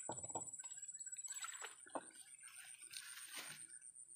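Faint, irregular sloshing and splashing of water, in short uneven bursts.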